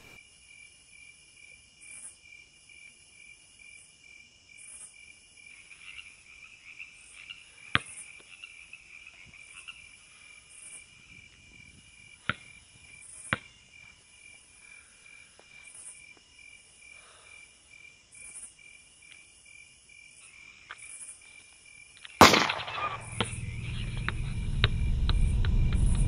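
Crickets chirping steadily in a fast even pulse, with a few sharp knocks now and then. About 22 seconds in comes a loud hit, followed by a deep rumbling swell that keeps growing louder.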